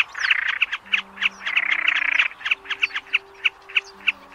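Snipe calling: a steady run of sharp, clipped notes about three a second, with harsh rasping calls over them through the first half. This is a trappers' lure recording for drawing snipe to night nets. Low held tones sound underneath.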